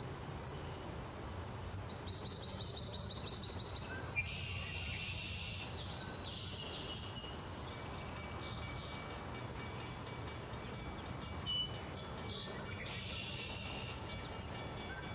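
Birds chirping, with a rapid high trill about two seconds in, over a steady low rumble.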